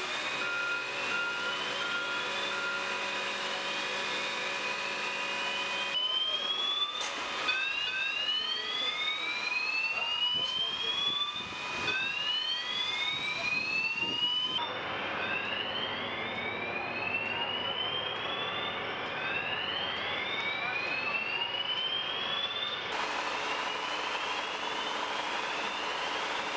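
An evacuation alarm sounding a whoop: a rising tone that repeats every second or two, several sounders overlapping out of step. A steady mechanical hum runs underneath.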